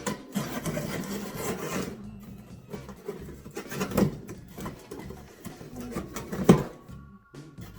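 Cardboard box being opened by hand: cardboard and packing rubbing and scraping for the first couple of seconds, then lighter rustling with a sharp knock about four seconds in and a louder one near the end.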